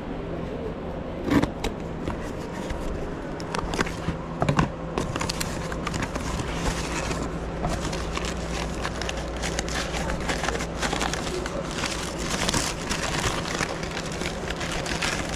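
Brown kraft packing paper crinkling and rustling as it is unwrapped and pulled apart by hand, after a couple of sharp knocks from handling a small cardboard box in the first few seconds.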